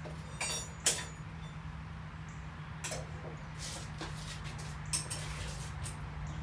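Iron stock and blacksmith's tongs clinking against each other and the coal forge, about five separate clinks with the sharpest one about a second in, some with a short metallic ring. A steady low hum runs underneath.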